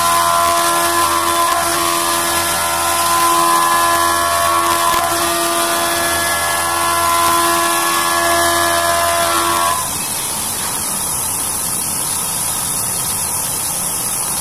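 CNC milling machine's end mill cutting aluminium under flood coolant, a loud whine of several steady high tones over a hiss. About ten seconds in the whine stops and a steady hiss and hum carry on.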